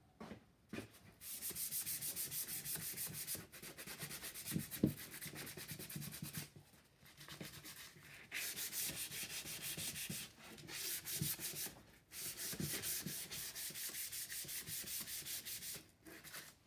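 Hand sanding a bare wooden chair frame with sandpaper: quick back-and-forth strokes, about five a second, in several bouts with short pauses between them.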